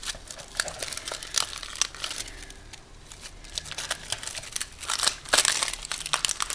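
Plastic packaging crinkling and crackling in irregular bursts as it is worked open by hand, with a denser run of crackles about five seconds in.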